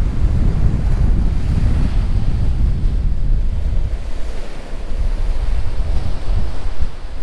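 Sea surf washing onto a beach, with strong wind buffeting the microphone in gusts.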